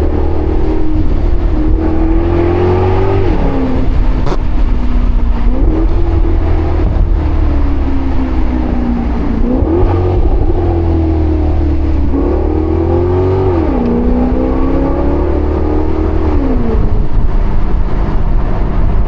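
Maserati GranCabrio's Ferrari-derived 4.7-litre V8 pulling under acceleration, with a deep exhaust rumble underneath. Its revs climb and then drop sharply several times: gear changes through the rev range.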